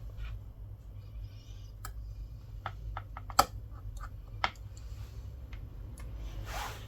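Irregular light clicks and taps from small parts and tools being handled, with one sharper click about three and a half seconds in, over a steady low hum.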